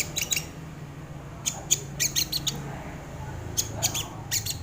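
Crimson sunbird (sogon) calling: quick clusters of short, sharp, high chirps, three bursts with brief pauses between them, over a steady low hum.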